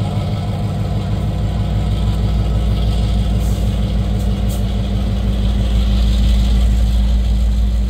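A heavy engine idling: a steady, even low drone that holds throughout.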